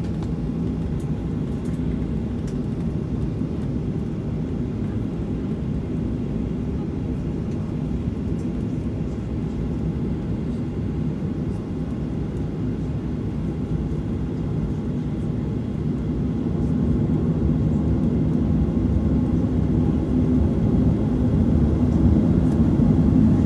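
Boeing 737-800's CFM56-7B turbofans heard from inside the cabin, running at low taxi power as a steady low rumble that grows somewhat louder in the last third.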